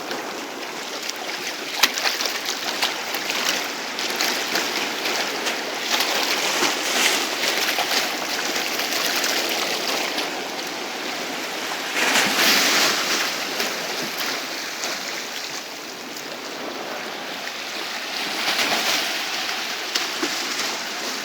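Sea waves washing onto the shore, the surf swelling and easing every five or six seconds.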